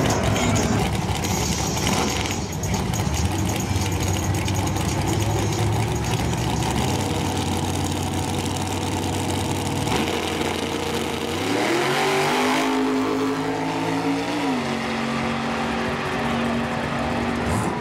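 Drag race cars' engines running at the strip. One engine revs up with a rising note about two-thirds of the way in, holds for a couple of seconds, then drops back to a steady idle.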